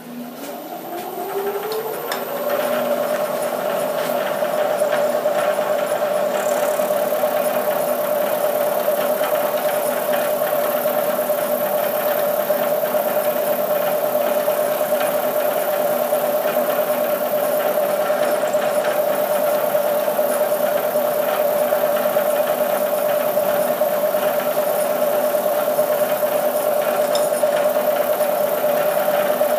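Bridgeport milling machine's spindle starting and running up to speed, a rising whine over the first couple of seconds. It then runs at a steady pitch while a 3/16-inch slot drill cuts a keyway into a shaft.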